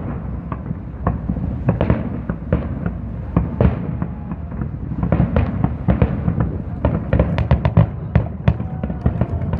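Aerial fireworks bursting one after another: a steady run of sharp bangs and crackles that thickens into a rapid volley about seven seconds in.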